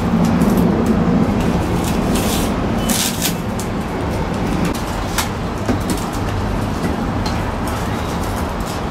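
Aluminium foil tape crinkling and tearing in short bursts as it is pressed around a flexible duct, over a steady loud background noise.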